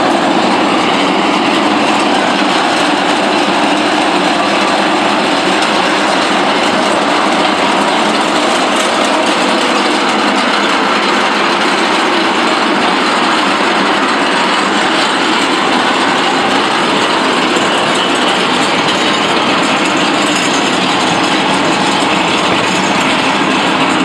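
Half-barrel carts on small wheels being pulled along a tarmac road, their wheels making a loud, steady rolling rattle.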